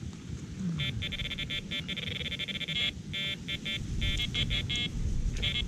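Electronic bite alarm on a carp rod pod beeping in fast, irregular bursts as line is pulled off the reel: a fish has taken the bait and is running.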